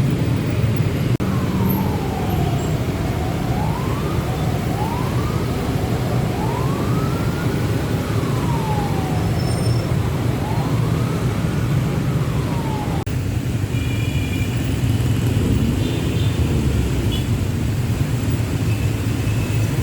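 A vehicle siren sweeping slowly up and down in uneven rises and falls for about ten seconds, over the steady rumble of a jammed road's idling traffic. Later there are a few short high beeps.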